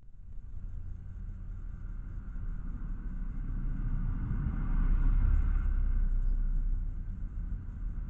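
Low rumbling noise that builds to its loudest about five seconds in and then eases off.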